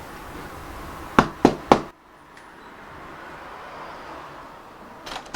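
Three quick knocks on a door, about a quarter second apart, over a quiet room background.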